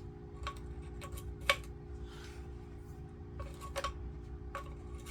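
Hand tools clinking: a dozen or so light metallic clicks and clanks, one sharper clank about a second and a half in, as a wrench is picked out and handled. A steady low electrical hum runs underneath.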